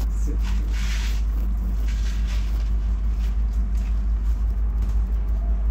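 Steady low rumble and faint steady hum of a DB Class 430 S-Bahn electric multiple unit, heard from inside the passenger car, with a few short hissing noises about a second and two seconds in.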